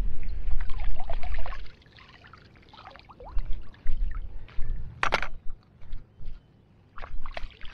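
Water splashing and trickling at the river's edge while a small bream is unhooked in the water, with scattered clicks and knocks of handling and a sharp click about five seconds in. A low rumble, loudest in the first second and a half, runs under it.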